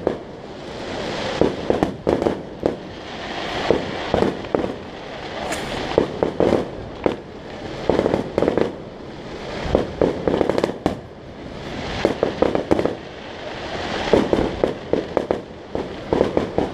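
Fireworks going off: clusters of sharp cracks and pops about every two seconds, each led in by a swelling rush of noise.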